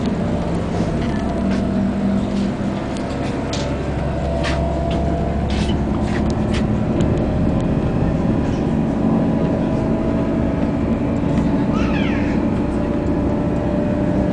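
Steady running noise of a moving passenger train heard from inside, a low drone with scattered short clicks from the track. A short high squeal sounds about twelve seconds in.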